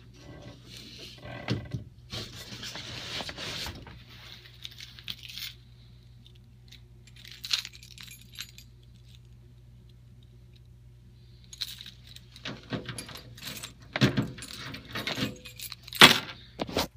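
Unpacking noises: packing material rustling and scraping, then a run of knocks and clinking clatters, loudest near the end, as a boxed fire alarm panel is lifted out and handled.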